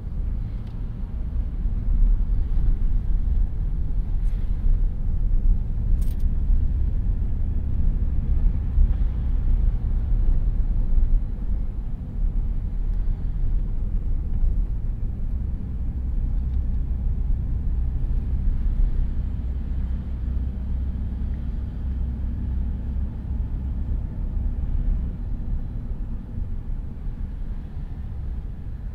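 Car driving along a road: a steady low rumble of engine and tyres. There is a brief click about six seconds in.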